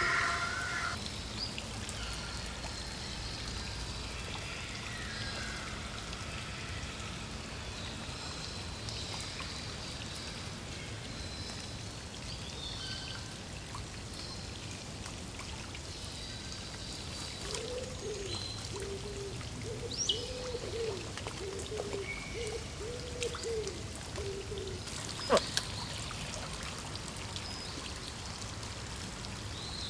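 Steady patter of rain on a pond, with small birds chirping at times. About two-thirds of the way through comes a run of low wavering calls, followed by a sharp tap.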